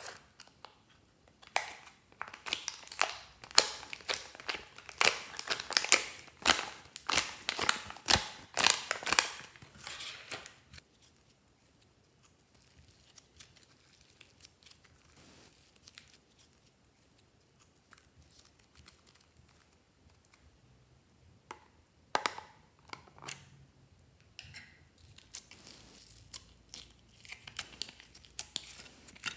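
Slime being squished and stretched by hand, with dense sharp crackles and pops for the first ten seconds or so. After a quieter stretch, scattered pops start again about two-thirds of the way through.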